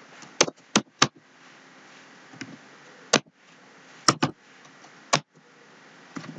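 Computer keyboard keystrokes: about seven sharp, separate clicks at an uneven pace over a faint steady hiss.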